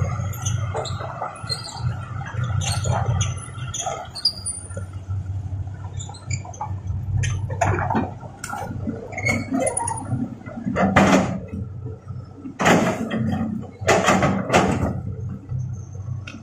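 Hitachi ZX200 hydraulic excavator running with a steady low diesel hum while its bucket works through rocky, muddy ground. Several loud bursts of scraping noise come in the second half.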